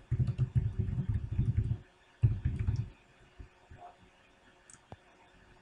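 Typing on a computer keyboard, heard mostly as quick dull thumps for about three seconds, then a few faint scattered clicks.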